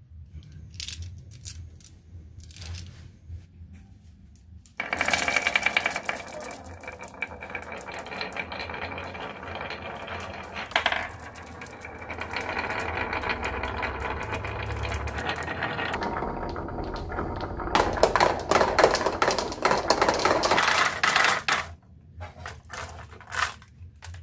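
Marbles rolling and clacking along a wooden marble run: a few scattered clicks, then a long stretch of dense rattling about five seconds in, a louder burst of clatter near the end, and scattered clicks again as it thins out.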